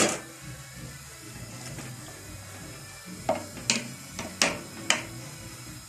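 Spoon stirring chopped tomatoes in an aluminium pot, knocking against the pot about five times in the second half, over a faint sizzle as the tomatoes cook down and give up their water.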